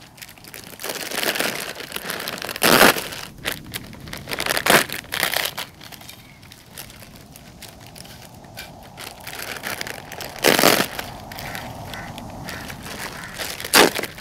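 Foil potato-chip packets (Lay's) crinkling and rustling as they are torn open and shaken out, with the chips crackling onto a plate. The crackling is irregular, with several louder crackles along the way.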